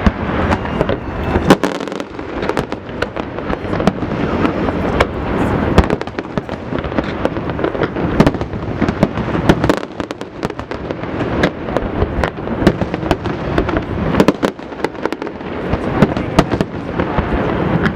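Fireworks display: a dense, continuous barrage of aerial shell bursts, overlapping bangs and crackle with no break.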